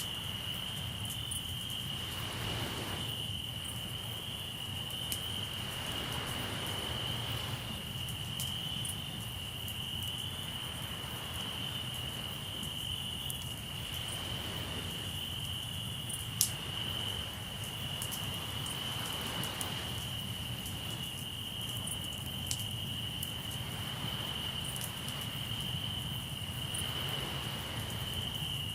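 Crickets trilling in one steady, unbroken high note, over a steady low rumble and waves washing ashore about every four to five seconds. A campfire crackles now and then, with one sharp pop about halfway through.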